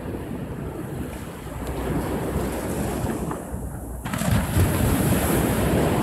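Small sea waves breaking and washing up a sandy beach, with a louder wave breaking about four seconds in.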